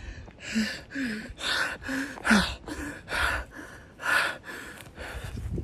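A man breathing hard, with heavy gasping breaths about one every three-quarters of a second, some with a short voiced catch.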